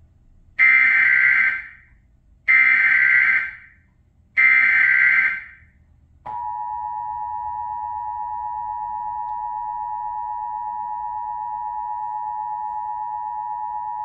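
Emergency Alert System test tones from a TV: three roughly one-second bursts of the rasping SAME header data signal, then the steady two-tone EAS attention signal held for about eight seconds.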